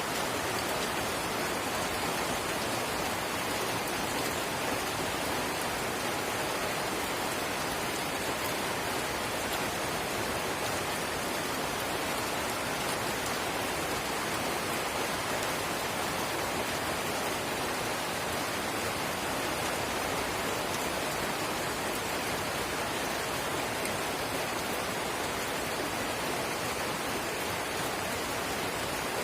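Light rain falling steadily: an even hiss of drizzle with faint fine patter of drops.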